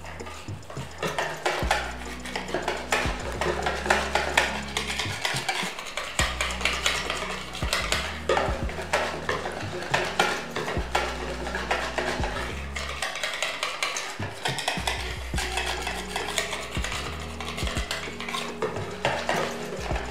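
Wire whisk beating a thin flour-and-ice-water batter in a plastic bowl: a rapid, continuous run of ticking and scraping as the wires hit the bowl and slosh through the liquid.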